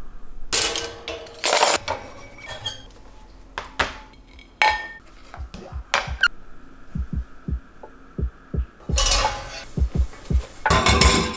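Ceramic dishes and a stainless steel pot clinking and clattering as washed dishes are put away in a wire dish rack, over soft background music with a low beat.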